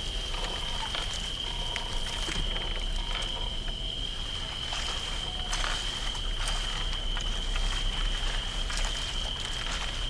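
Layered night-river soundscape: crickets droning steadily on one high pitch, with scattered crackles and clicks over a constant low rumble.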